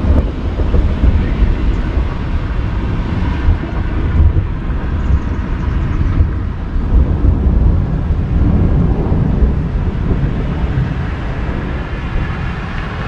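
Gusty wind buffeting the microphone ahead of a thunderstorm: a loud, continuous low rumble that swells and eases without a break.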